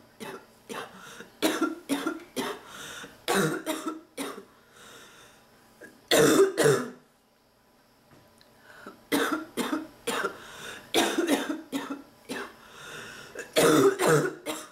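A sick person coughing in repeated fits: runs of short hacking coughs, the loudest about six seconds in, a brief pause, then another run ending in a loud cough near the end.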